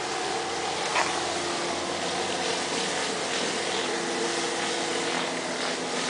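Pressure washer running steadily: a machine hum under the hiss of spraying water, with one sharp click about a second in.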